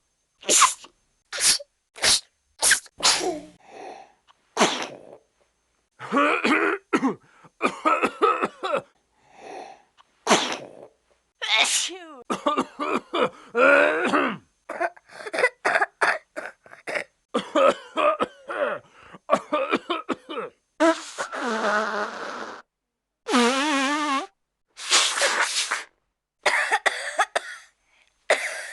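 A series of human coughs: short single coughs and quick fits of several coughs in a row, with short pauses between them. About two-thirds of the way through come two longer, rasping, throaty hacks.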